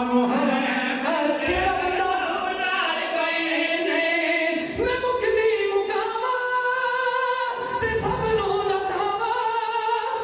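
Men singing a devotional song through a microphone. A lead voice holds long, sliding notes while others join in.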